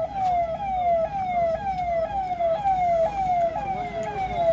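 Vehicle siren sounding in a rapid repeating pattern: each tone falls in pitch, then snaps back up, about two times a second. Low traffic rumble runs underneath.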